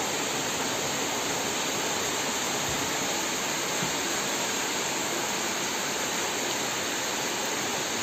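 Heavy rain falling, an even, steady hiss with no change in level.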